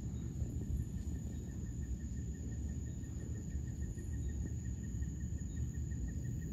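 Night insects calling: a steady high-pitched trill together with a faint chirp that repeats several times a second, over a steady low noise with no distinct thunder clap.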